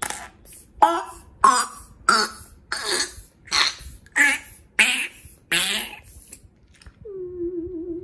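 Fart-like squelching from slime inside a pig squishy toy as air is squeezed into it with a rubber bulb pump: a quick run of about nine wet, spluttering bursts, roughly one every two-thirds of a second, blowing a slime bubble. Near the end a steady pitched tone starts.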